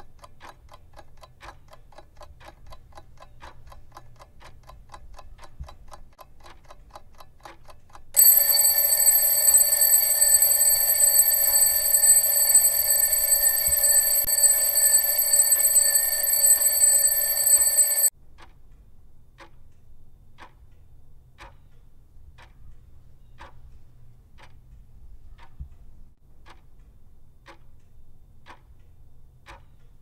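Twin-bell mechanical alarm clock: quick, even ticking, then about eight seconds in the bell alarm rings loudly and steadily for about ten seconds and cuts off suddenly. Slower ticking follows, about one tick a second.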